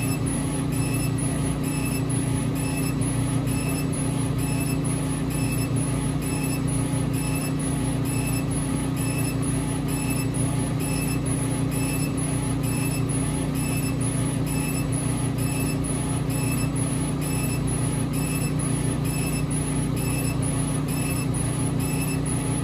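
Epilog Fusion M2 laser cutter raster-engraving wood: a steady mechanical hum with a brief high-pitched whine repeating about twice a second as the laser head sweeps back and forth.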